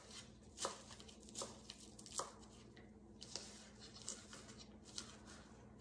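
Kitchen knife chopping fresh spinach leaves on a cutting board: soft, faint taps at an uneven pace, roughly one a second, as the blade meets the board.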